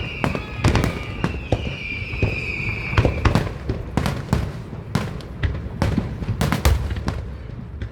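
Fireworks display: rapid, irregular bangs and crackles with low rumbling booms. Over the first three seconds a high whistle sounds, falling slightly in pitch before it stops.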